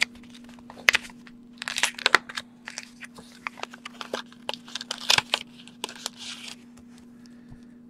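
Black paper envelope being opened and unfolded by hand: irregular paper rustles and crackles with a few sharp snaps, thinning out near the end.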